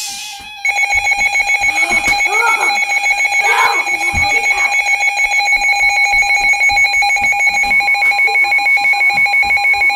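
Weather radio alert alarm sounding for a flood warning: a loud, high-pitched tone beeping rapidly, about five pulses a second. Near the end a steady lower tone, the 1050 Hz warning alarm tone, comes in underneath.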